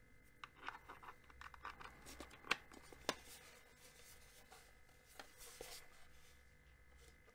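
Faint handling noises from a desktop digital clock and its micro USB cable being plugged in and turned over: scattered small clicks and rubs, with two sharper clicks about two and a half and three seconds in.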